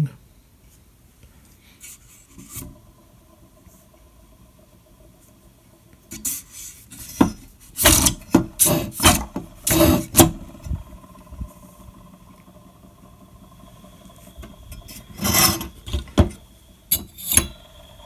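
Worn inducer motor from a 2003 Carrier gas furnace, its blower wheel spun and the assembly turned by hand. There is a faint steady whir as the wheel coasts, and two bouts of rasping scrapes, one about six seconds in and one near the end. The owner takes the fault for a bearing issue.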